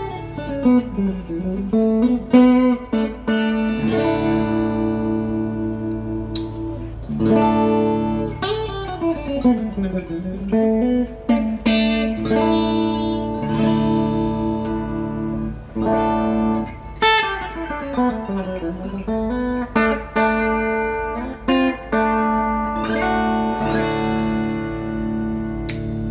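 PRS SE DGT electric guitar played solo: held chords broken by single-note runs that fall and then climb again, the phrase coming back about every eight or nine seconds.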